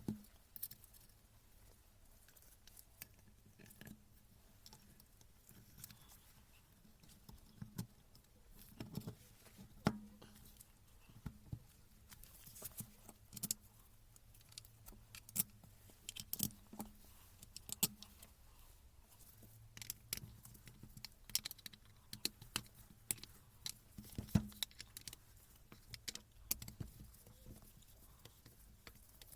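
Irregular light clicks, taps and metallic clinks of small metal parts and hand tools being handled on a workbench during servicing of a rotary hammer, over a faint steady low hum.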